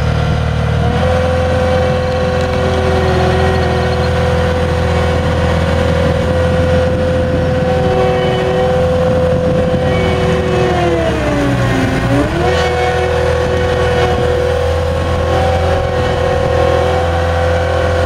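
Caterpillar 242D skid steer's diesel engine running steadily with a whine while the machine drives and pushes dirt with its bucket; the whine dips in pitch about eleven seconds in and comes back about a second later.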